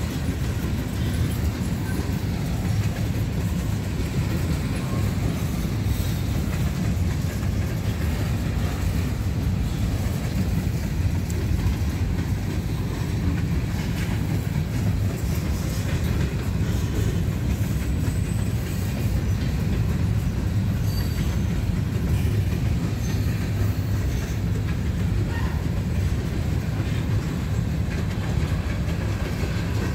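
Freight train cars (tank cars and covered hoppers) rolling past, a steady heavy rumble of steel wheels on rail.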